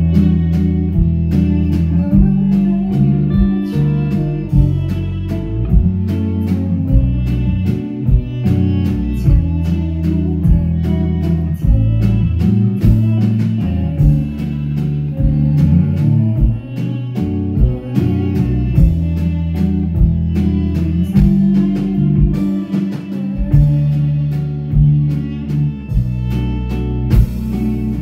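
Live band music: a hollow-body electric guitar playing over deep bass notes and a steady beat.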